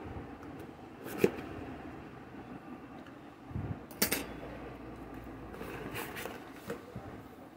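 Corrugated cardboard shipping box being opened by hand: flaps pulled back and the contents gripped and shifted, with a few sharp clicks or knocks, the loudest about a second in and about four seconds in, and a low thud just before the second.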